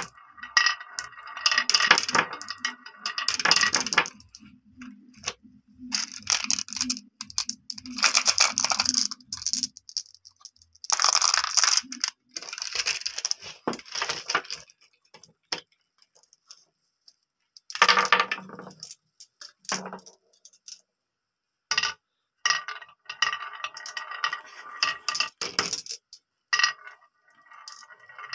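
Glass marbles rolling down a carved wooden track and clicking and clinking against one another, in several runs with short quiet gaps between.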